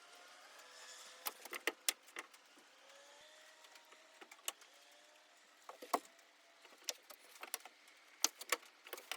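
Scattered light knocks and clicks of a heavy wooden door being worked into its frame during installation, in small clusters, with a faint rising whine in the background early on.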